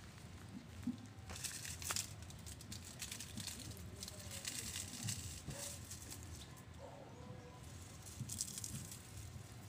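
Intermittent rustling and crinkling as a trellis line is handled and tied around a concrete post, in irregular bursts with a few sharper scrapes.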